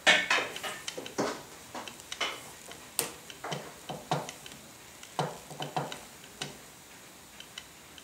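Hands handling a coiled rubber power-tool cord and bungee while adjusting a knot: irregular rustles, taps and clicks, loudest at the start, dying away about six and a half seconds in.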